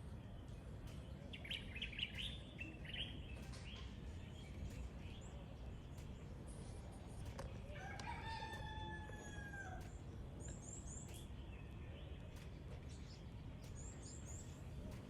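A rooster crows once near the middle, one long call of about two seconds. Small birds chirp now and then over a steady low background noise.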